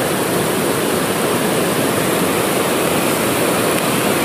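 Fast river water rushing and churning around boulders close by: a steady, even rush of whitewater.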